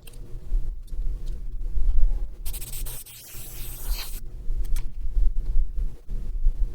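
Rubbing and handling noises with irregular light knocks. A short airbrush spray hiss comes about two and a half seconds in and lasts under two seconds.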